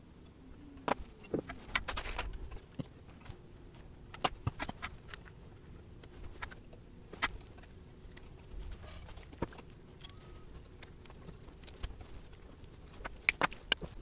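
Scattered small clicks, taps and rattles of pliers and component leads handled against a metal amplifier chassis during capacitor replacement.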